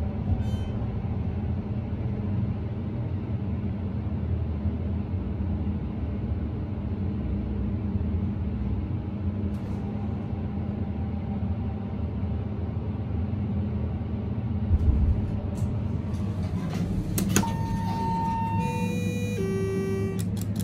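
Otis hydraulic elevator, modernized by Schindler, riding up as heard inside the cab: a steady low hum of the car travelling, then a low thump about fifteen seconds in as it comes to a stop. Near the end there is a single beep and a two-note falling chime.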